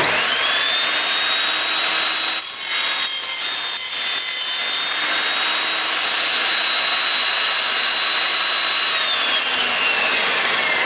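Evolution Rage 5-S table saw with its multi-material blade cutting through a piece of timber studded with steel tacks. The motor whines up to speed in the first second and runs steadily while the blade goes through the wood and tacks. About nine seconds in it is switched off and the whine falls away as the blade winds down.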